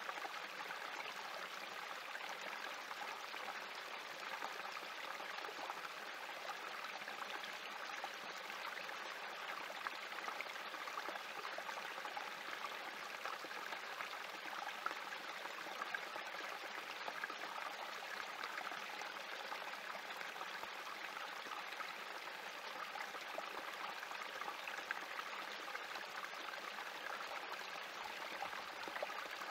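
Small spring creek trickling and splashing over rocks in a shallow cascade, a steady babble with little flickers of droplets.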